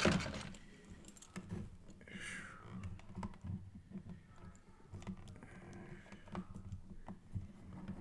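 Faint, irregular small clicks and taps of a Mezco Cable action figure being posed by hand on its display stand, its plastic joints and base clicking as the limbs are adjusted.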